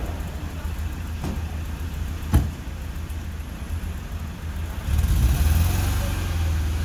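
Ambulance engine running while its rear door is shut with a sharp slam about two seconds in, after a softer knock a second earlier; from about five seconds in the engine gets louder as the ambulance pulls away.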